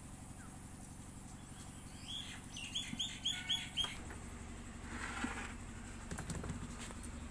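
A bird calling a quick run of about six short chirps, a little after two seconds in, over a steady low hum.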